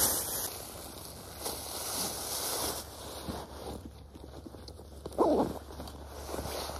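Hunting gear being handled: a plastic bag rustling, then a backpack lifted and shouldered with fabric and strap rustle. A brief louder scrape comes about five seconds in.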